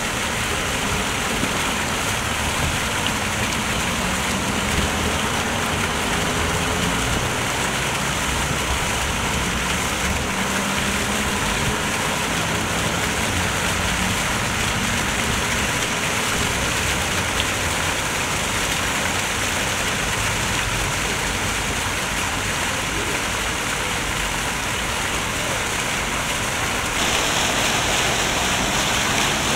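Fountain jets splashing steadily into a shallow stone pool, a constant rush of falling water that gets a little louder near the end.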